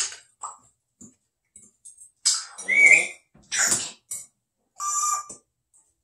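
African grey parrot calling in a string of short sounds: hissy squawks, a brief whistle about halfway through, and a buzzy, beep-like call near the end.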